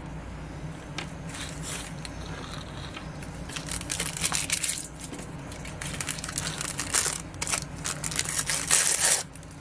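Crinkly plastic wrappers of Mini Fashion blind-bag packets being handled and torn open: irregular crackling and crinkling in bursts, starting about a third of the way in, heaviest near the end and stopping suddenly.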